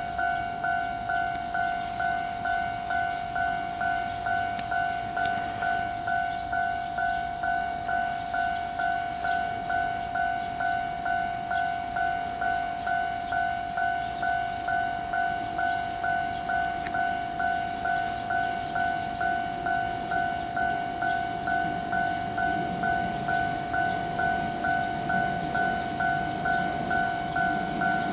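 Japanese railway level-crossing warning bell sounding its steady repeated ding. A low rumble builds in the last several seconds as a train approaches.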